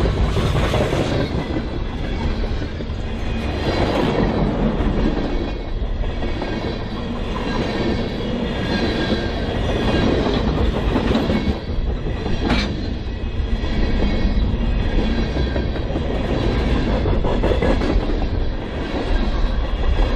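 Freight train cars rolling past on steel rail, a steady loud rumble of wheels that swells and eases, with a faint wheel squeal and one sharp clank about twelve seconds in.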